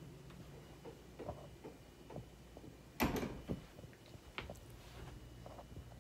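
A door knocking shut once about halfway through, with a short ring after it, among a few lighter knocks and clicks from moving around.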